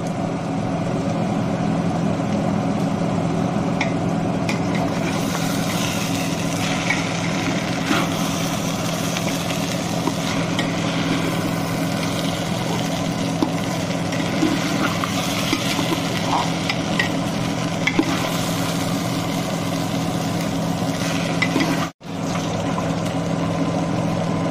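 Rice frying in an aluminium pot, turned over with a steel spatula: scraping and light sizzling with small ticks of metal on metal, over a steady low hum. The sound briefly cuts out near the end.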